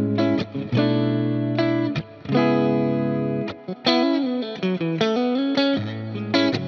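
Fender Player Plus Nashville Telecaster electric guitar playing a run of chords and notes. Each is struck sharply and rings on until the next, with a few brief gaps.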